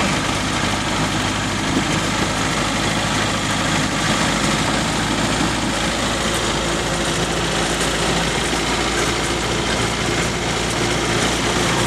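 Land Rover's engine running steadily with tyre and rattling cabin noise while driving along an unpaved sand track, heard from inside the cabin.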